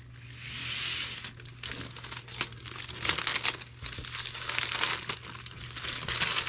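Plastic packaging crinkling and rustling as it is handled, in uneven crackly spells that swell and fade.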